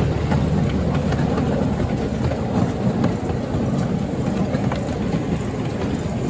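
A miniature railway train running along its track, heard from on board: a steady low rumble from the carriages and wheels, with occasional faint clicks.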